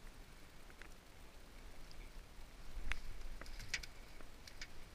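Water dripping and a few light taps as a pike is lifted by hand out of the water into a wooden boat, over a faint steady hiss. The taps are scattered and come mostly in the second half.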